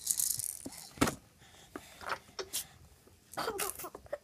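A single sneeze about a second in, then a baby's short vocal sounds near the end.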